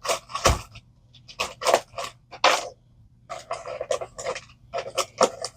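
Small electronic parts being handled and sorted by hand on a workbench: an irregular run of short clicks, taps and rustles.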